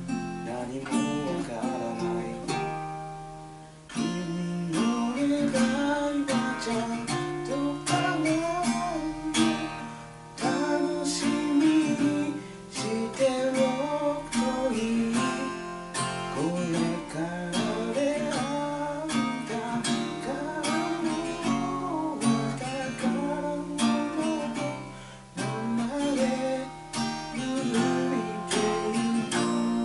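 Acoustic guitar being played, strummed chords mixed with picked notes, with a few brief dips in loudness between phrases.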